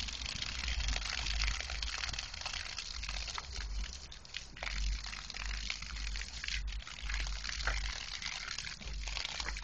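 Water spraying from a garden hose onto grass and a small dog: a steady hiss with splashing and brief crackles, while low rumbles come and go.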